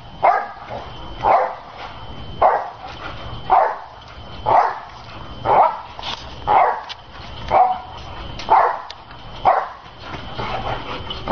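A dog barking steadily about once a second, each bark short and falling in pitch.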